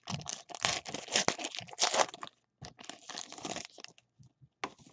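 Foil trading-card pack wrapper crinkling and crackling as it is handled, most heavily over the first two seconds and again briefly around three seconds in.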